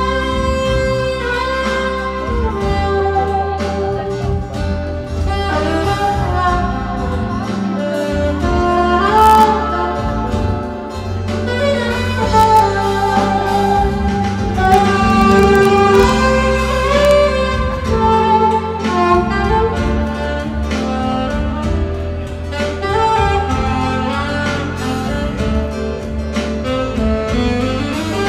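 Instrumental break in a slow ballad: a saxophone plays the melody over acoustic guitar and a low bass line.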